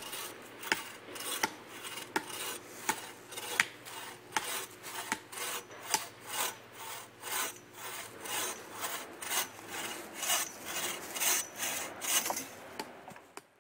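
Hand saw cutting through a wooden branch, with steady back-and-forth strokes about two to three a second that stop shortly before the end.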